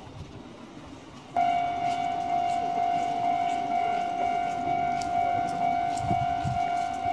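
Japanese level-crossing warning bell switching on suddenly about a second and a half in and ringing on steadily as one piercing tone. It is the signal that a train is approaching and the crossing is closing.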